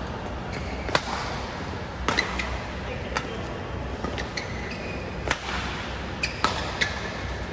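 Badminton rally: rackets smacking the shuttlecock back and forth, heard as sharp cracks spaced irregularly about a second apart, with short squeaks of shoes on the court mat and a steady low hum.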